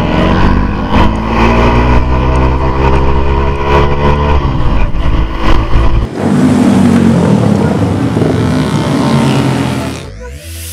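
Vehicle engine accelerating hard, its note rising steadily, with a brief dip about four and a half seconds in. From about six seconds the engine note gives way to a loud rushing noise, which drops off near the end.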